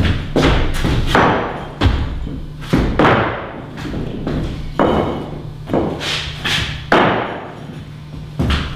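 Irregular heavy thuds and knocks, about a dozen, each ringing briefly in a large room, over a steady low hum.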